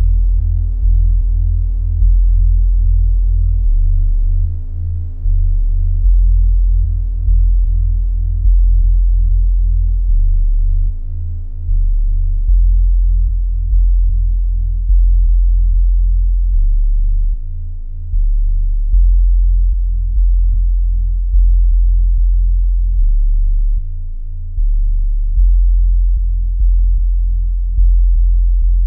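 Minimal electronic drone music made of pure low tones: a deep bass pulse that swells and slowly decays about every second and a half, under a steady low tone. Faint higher overtones fade away over the first several seconds.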